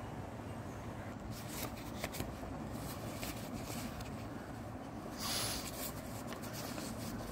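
A paper banknote being handled and flipped over in the hand, with light crinkling clicks and a louder brief rustle about five seconds in, over a steady low background hum.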